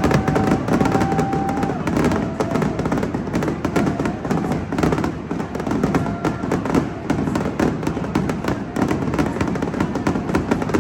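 Fireworks display going off in rapid succession: a dense, continuous crackle of many small bangs.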